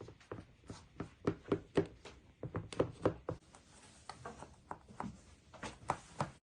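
Clatter of objects being handled: many quick, irregular knocks and taps, cutting off suddenly near the end.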